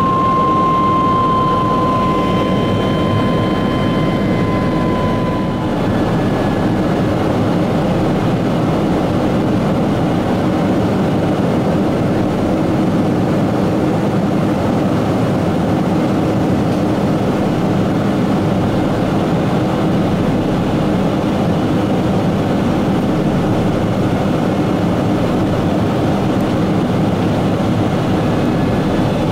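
Steady roar of a Boeing 777-200 airliner in flight, heard from a cabin window seat, with a high whine from the engines that drifts slightly down in pitch and fades out about six seconds in.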